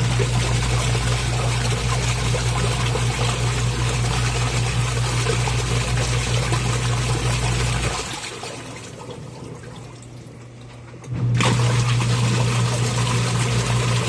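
Praxis twin-tub washing machine's wash tub agitating water on the normal setting. The motor hums and the water churns for about eight seconds, then the motor stops for about three seconds while the water sloshes on, then it starts again: the pause between turns in each direction.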